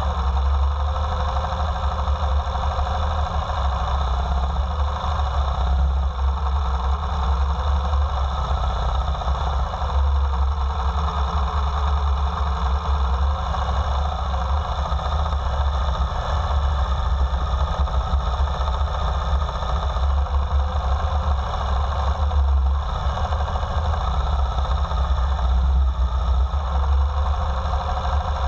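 Motorcycle engine running steadily at low speed, its pitch dipping and rising gently a few times with the throttle.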